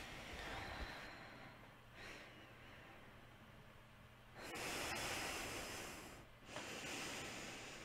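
A person breathing slowly and audibly. Two long breaths come about four seconds in, each lasting over a second, with a short pause between them.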